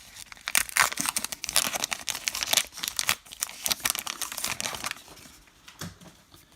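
A baseball card pack wrapper being torn open and crinkled: a dense run of crackles for about five seconds that then dies down.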